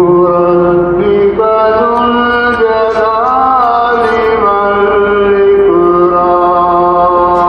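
A man's voice chanting in long held notes that step up about a second in and back down toward the end, wavering in pitch around the middle.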